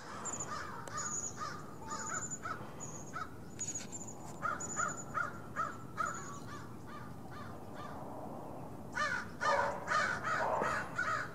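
A flock of crows cawing, call after call, thinning out for a couple of seconds midway, then many crows cawing at once over each other near the end.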